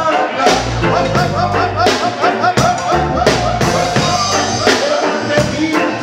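Live reggae band playing, with drum kit hits and a strong bass line, and a singer on the microphone.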